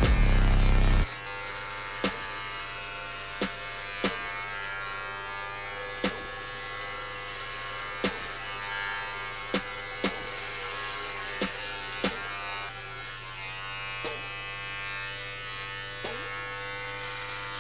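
Electric hair clipper buzzing steadily while it buzzes long hair down to about an inch, with a dozen or so sharp clicks spread through it. Music plays for the first second, then cuts to the clipper.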